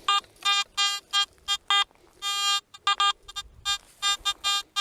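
Garrett AT Max metal detector sounding target tones through its speaker as the coil is swept: a quick, irregular run of short beeps at one pitch, with one longer held tone about two seconds in.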